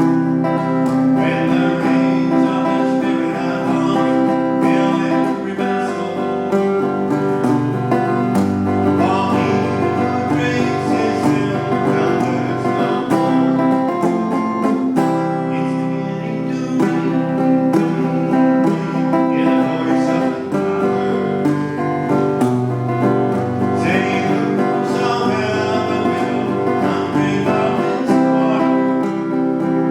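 Country-style music led by acoustic guitar, playing steadily throughout.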